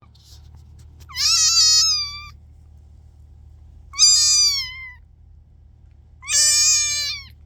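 A kitten meowing three times, each high-pitched call lasting about a second, with the pitch sagging at the end of each call.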